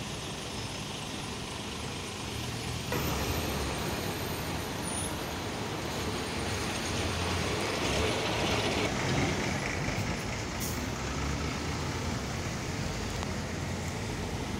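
Congested city road traffic: engines of minibuses, buses, vans and cars running and crawling close by, with a steady low rumble and a louder hiss about seven to nine seconds in.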